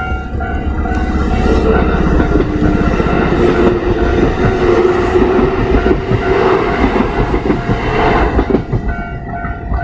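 Kintetsu electric train passing over a level crossing at speed, its wheels clattering quickly over the rail joints under a steady running noise. The crossing's warning bell rings faintly at the start and comes through again near the end as the train clears.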